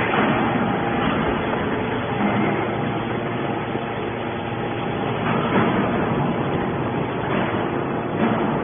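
Hydraulic scrap-metal baler running: steady machine noise with a few brief louder surges as it works on scrap aluminum.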